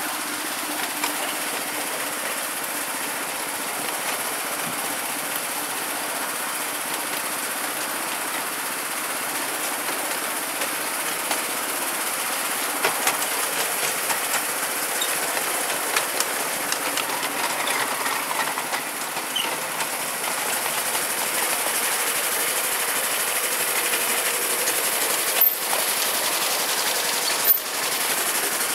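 Miniature railway train running along the track, heard from one of its carriages: a steady running noise with the wheels clattering and clicking on the rails, and two sharp louder clicks near the end.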